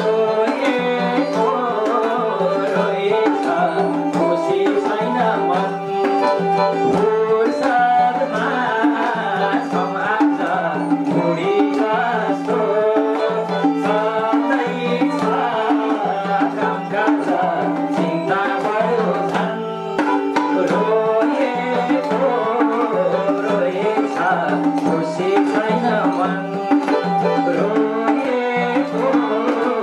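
Instrumental Nepali folk music: a madal hand drum beats a steady rhythm under a melody on an electronic keyboard and a bowed Nepali sarangi.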